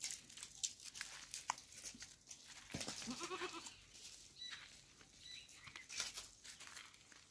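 A goat bleats once about three seconds in, a wavering call a little under a second long, over scattered crackling and rustling on dry ground.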